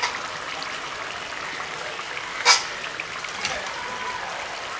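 Prawn curry bubbling at a steady boil in an iron karahi over a wood-fired clay stove, with a sharp click at the start and a louder one about two and a half seconds in.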